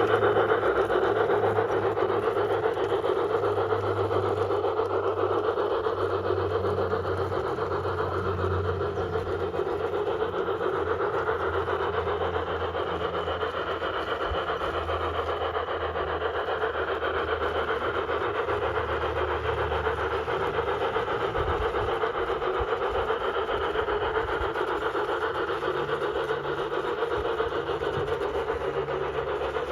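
LGB G-scale model train running steadily on its track: an even mechanical hum of motor and gearing with running noise from the wheels.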